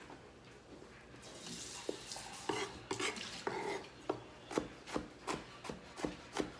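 Chef's knife chopping tomatoes and jalapeño peppers on a wooden cutting board. A short scrape of the blade across the board comes about a second in, then steady knife knocks on the board, about two or three a second.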